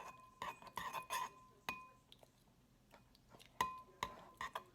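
A utensil clinking against a bowl while slime ingredients are stirred. There are a handful of sharp taps, each with a short ringing tone: a quick run in the first two seconds and a few more near the end.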